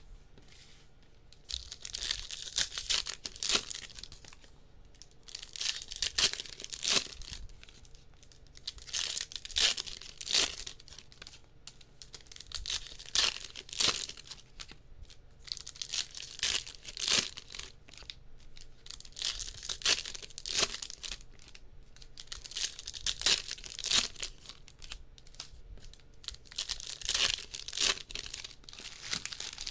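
2022 Topps Chrome trading card packs being ripped open by hand, wrappers tearing and crinkling in repeated bursts every few seconds.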